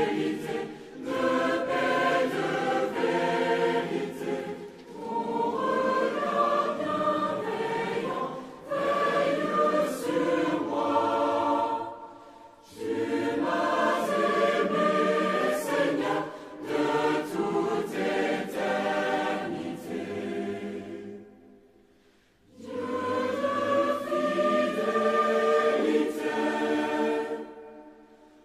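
Large mixed choir of men's and women's voices singing a French Christian hymn phrase by phrase. There is a longer pause between lines about three-quarters of the way through, and the singing fades near the end.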